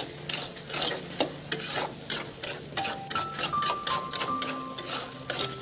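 A utensil stirring fish innards, tomato and spices in a metal wok, scraping against the pan about three times a second.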